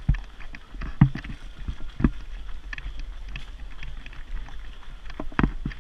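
Running footsteps on a tarmac road with sharp knocks, the loudest about once a second at first and again near the end, over a steady low rumble of movement and wind.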